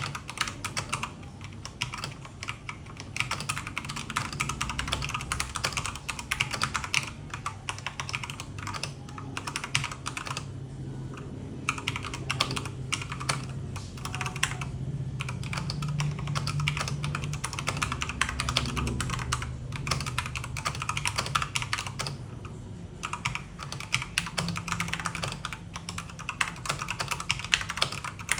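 Dareu EK810G mechanical keyboard with red switches being typed on fast: a dense, continuous stream of key clacks, broken by two short pauses partway through.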